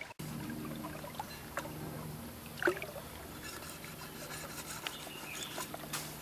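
Steady trickle of a shallow stream, with scattered light clicks and scrapes from a large knife working on a fish laid over a log. One sharper knock comes a little under three seconds in.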